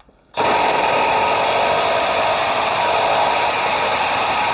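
Cordless drill driving an Armeg hole cutter through steel trunking that has been wetted with cutting compound. A steady cutting noise starts about a third of a second in and holds evenly.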